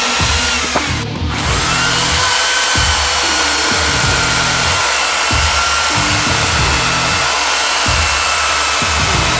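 Electric chainsaw running at speed with a steady high whine as its bar cuts down through a round log, over background music with a steady beat.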